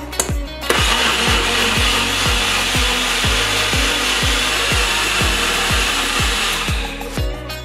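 NutriBullet personal blender running, whirring as it purees soaked oat flakes and liquid into a smooth batter. It starts under a second in and cuts off about a second before the end.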